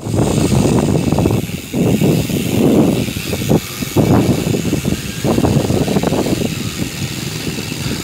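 Wind buffeting and rumbling on the microphone of a cyclist riding, rising and falling in uneven gusts, with rolling noise from the bike's tyres on the trail.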